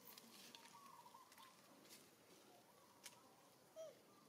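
Near silence: faint outdoor ambience with a few soft, short high chirps and light clicks. One brief falling call near the end is the loudest sound.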